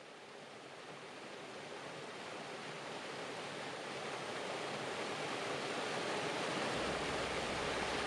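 Rocky mountain stream rushing over boulders: a steady rush of white water that fades in gradually and grows louder.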